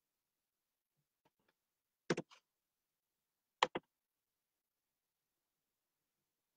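Near silence broken by two short double clicks, about a second and a half apart.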